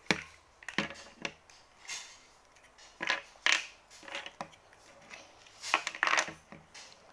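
Irregular clicks, taps and short rustles of small craft pieces being handled and fitted together by hand while a toy pistol is assembled.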